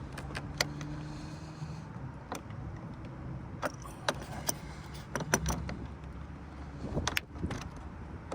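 Irregular metallic clicks and clinks of a hand wrench working a car battery terminal nut tight, over a low steady hum.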